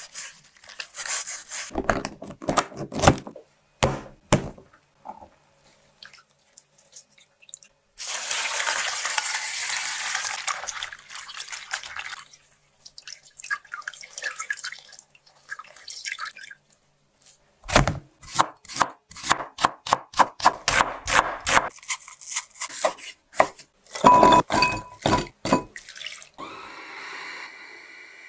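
Salted napa cabbage leaves rustling and crackling as hands rub salt into them and wring them out. A few seconds of water running off the squeezed cabbage come about eight seconds in, and a quick run of sharp crackles and clicks follows later.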